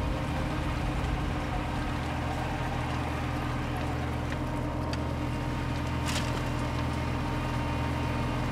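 Small farm tractor's engine running steadily at low speed as it pulls a film-laying mulcher along a ridge, with a couple of faint clicks a little past the middle.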